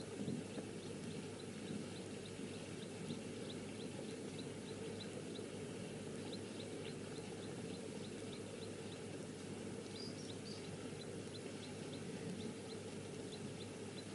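An insect chirping in an even rhythm, about three short high chirps a second, over a steady low background hum. A brief bird call comes about ten seconds in.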